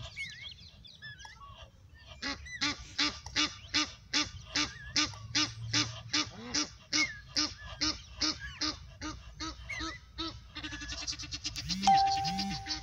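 A goose calling an even series of harsh honks, about three a second, for around eight seconds. Near the end the calls break into a faster, buzzier run with a held tone, the loudest part.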